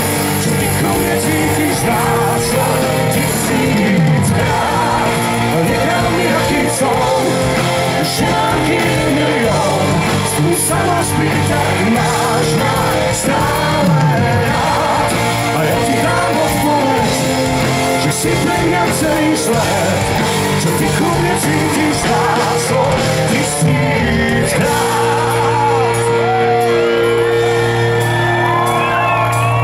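Live pop-rock band playing loud and continuously, with electric guitars, drums and singing, and shouts mixed in, heard from among the audience.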